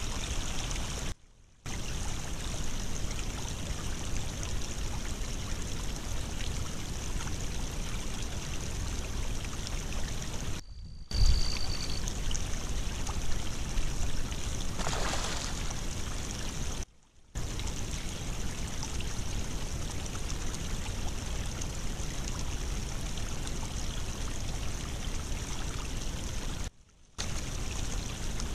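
Water rushing steadily through a breach in a beaver dam, heard through a trail camera's microphone. The rush breaks off in short silent gaps four times where one camera clip ends and the next begins, and there is a thump about eleven seconds in.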